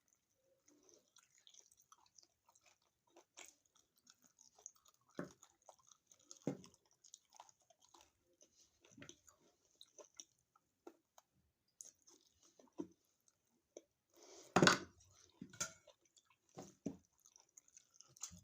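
Close-up chewing and mouth sounds of a person eating: scattered soft smacks and small clicks, with one louder crunchy bite about two-thirds of the way through.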